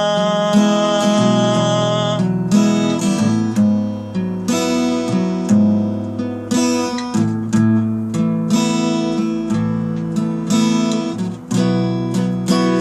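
Acoustic guitar strummed in chords through an instrumental break. For about the first two seconds a single sung note is held over it.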